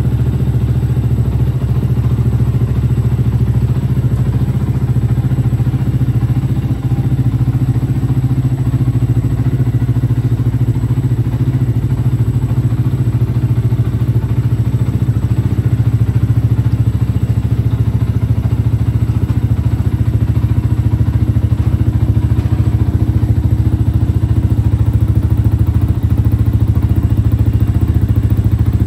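2014 Yamaha YZF-R125's single-cylinder four-stroke engine idling steadily through an aftermarket Akrapovic exhaust.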